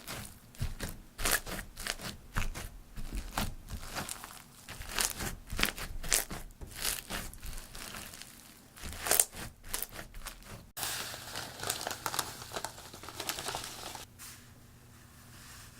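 Crunchy slime, glossy slime packed with foam beads, being worked by hand, giving a dense, irregular run of crackles and pops as the beads crunch. It stops about two seconds before the end, leaving only faint room tone.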